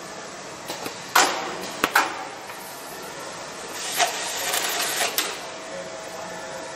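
Vertical case packing machine running: a steady mechanical hum with a constant tone, broken by sharp clacks about a second in and again about two seconds in, then a stretch of hissing, clattering machine action around four to five seconds in.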